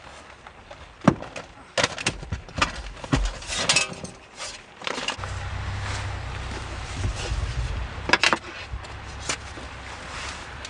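A run of sharp clicks, knocks and clatter from things being handled, then a steady low rumble from about halfway with a few more knocks.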